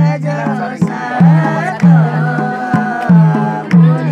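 Nepali dohori folk song: a drum beats a steady rhythm of low, ringing strokes under a voice singing the melody.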